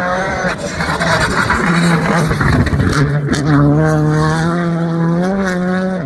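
Rally car engine running hard at high revs, its note broken by a rough patch near the middle and then held steady before stepping up in pitch near the end.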